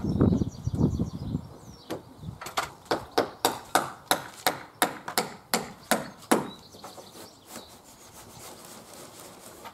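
Quick run of sharp hammer taps, about four a second, stopping a little past halfway: small pins being knocked into PVC trim boards at the roof edge.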